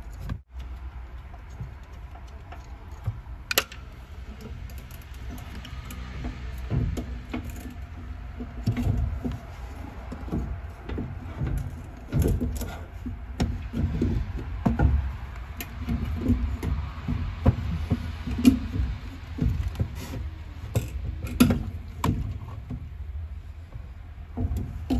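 Irregular knocks, clicks and rattles of a 2007 Hyundai Sonata's fuel pump assembly being worked loose by hand and pulled up through the fuel tank opening, with a sharp click about three and a half seconds in and busier knocking from about eight seconds on.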